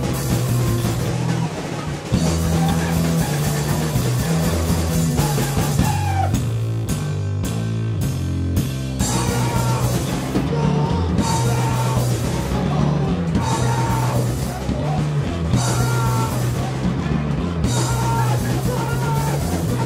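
Rock band playing live: drum kit, electric guitar and bass together. About six seconds in the band thins out for a few seconds before coming back in full.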